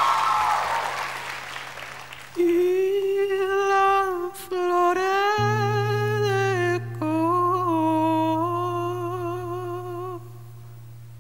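Crowd cheering dies away, then a man hums a slow wordless melody in long, slightly wavering held notes, with a steady low accompanying note beneath from about halfway through. It fades down near the end.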